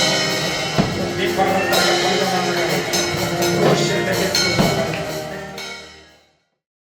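Live worship band music with drums and sustained keyboard chords, fading out to silence near the end.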